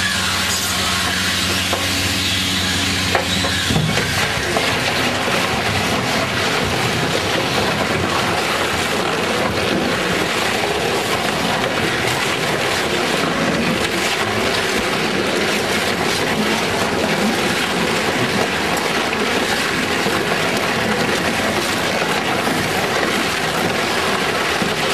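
Rotary-shear tyre shredder with its rows of cutter discs tearing up a whole tyre. A steady low drive hum gives way, about three and a half seconds in, to continuous crunching and grinding as the blades bite into the rubber.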